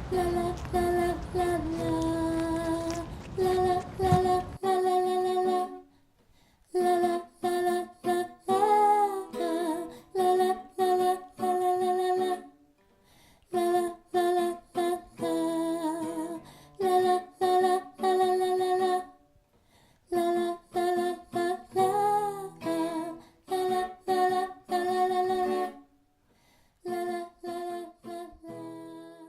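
A woman humming a slow, simple melody unaccompanied, in short held phrases separated by brief pauses. A low background rumble under the first few seconds cuts out suddenly.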